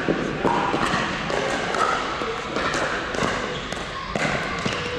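Pickleball paddles hitting plastic balls and balls bouncing on the court: many sharp pops at irregular intervals, with a murmur of voices underneath.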